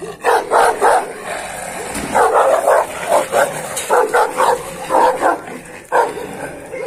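Kangal shepherd dogs barking at each other in a face-off, deep loud barks coming in quick runs of two or three with short pauses between.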